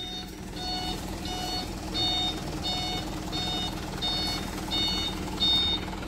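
Box truck's reversing alarm beeping steadily, about three beeps every two seconds, each a high electronic tone, over a steady low engine hum.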